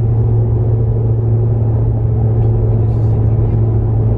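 Steady low rumble of engine and road noise heard inside a vehicle's cabin while driving at highway speed.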